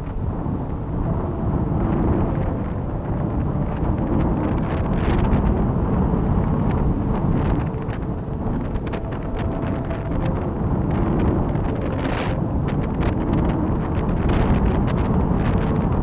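Strong gusting wind buffeting the microphone, swelling and easing every few seconds.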